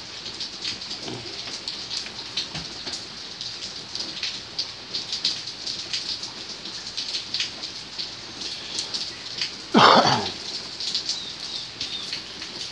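A steady high-pitched hiss sprinkled with faint ticks, and about ten seconds in one short, loud animal call that bends in pitch.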